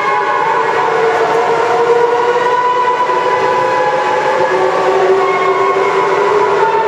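Steady industrial machine drone with several sustained whining tones that waver slowly in pitch.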